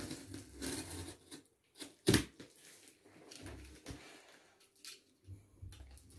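Hands rustling and scratching at the packing tape and plastic document sleeve of a wrapped cardboard parcel, picking for an edge to open it, with one sharp knock about two seconds in.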